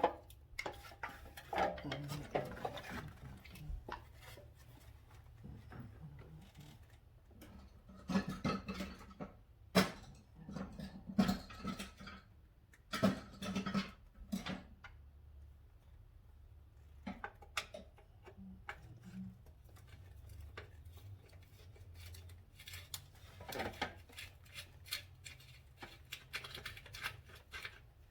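Irregular clicks, knocks and short clatters of hand tools and metal and plastic parts being handled during motorcycle disassembly, in uneven clusters with quieter gaps between.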